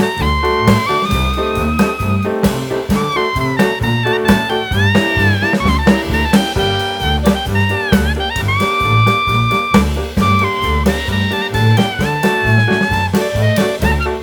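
Jazz background music: a horn melody with bending, sliding notes over a stepping bass line and drums.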